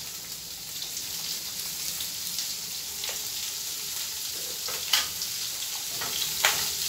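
Sliced red onion frying in oil in a pan, a steady sizzle, with a few light knocks about three, five and six and a half seconds in. The onion has just been salted to draw out its moisture.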